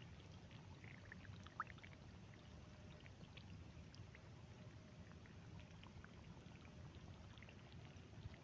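Faint trickling of irrigation water running across a flooded field, with scattered small plinks and one sharp click about a second and a half in.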